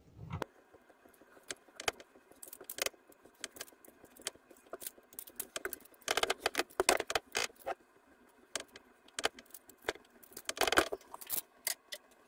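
Clinking and rattling of heavy red and black battery cables being handled and fed along the wiring, in irregular bursts of small clicks with busier spells about halfway through and near the end.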